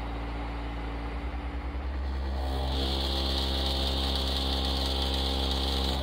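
Car subwoofers driven by a DB Sound DBMT1000.1D amplifier playing a steady, very loud low bass test tone (a burp) for an SPL measurement. It grows louder about two seconds in, and a high buzz joins about half a second later.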